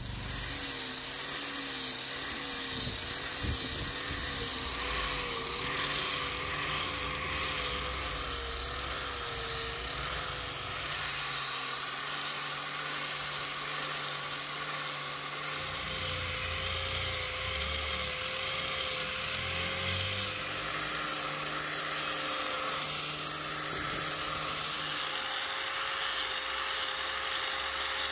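Electric angle grinder with a sanding disc running and sanding a rosewood axe handle: a steady motor whine over the hiss of abrasive on wood. Through the first ten seconds or so the whine wavers up and down in pitch as the disc is pressed into the wood, then it holds steady.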